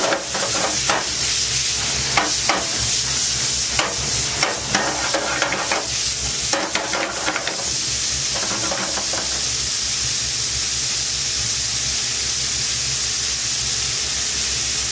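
Bacon lardons frying in butter in a pan, sizzling steadily. For roughly the first eight seconds a utensil knocks and clatters against the pan as the bacon is stirred; after that the sizzle carries on alone.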